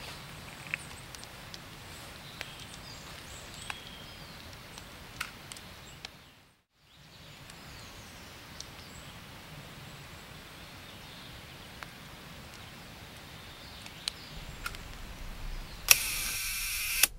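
Quiet woodland ambience with a few faint bird calls and scattered small clicks, cut briefly to silence about six and a half seconds in. Near the end a loud burst of noise lasts about a second.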